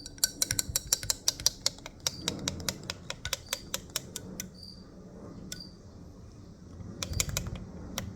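Irregular crackling and popping clicks of a baking-soda-and-water solution fizzing as it neutralizes the vinegar-and-salt residue on a corroded battery cable. The clicks come thick and fast, thin out in the middle, and pick up again near the end.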